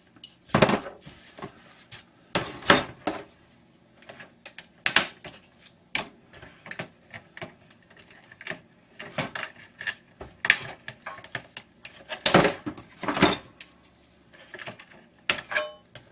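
Irregular clatter of small metal and plastic parts and tools being handled, knocked and set down while a flat-screen computer monitor is stripped for scrap, with a few louder knocks.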